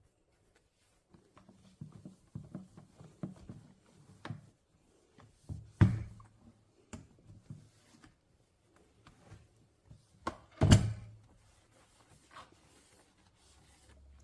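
Household handling noises: a run of soft knocks and taps, with two louder thumps about six and eleven seconds in.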